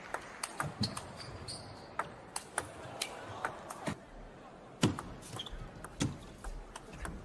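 Table tennis ball clicking off the rackets and the table in fast rallies, an irregular string of sharp ticks, with a few heavier knocks about five and six seconds in.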